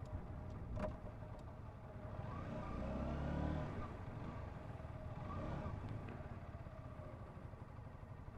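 Honda CBR125's single-cylinder four-stroke engine running on the move, its note swelling and shifting in pitch about two to four seconds in. A sharp tap a little under a second in.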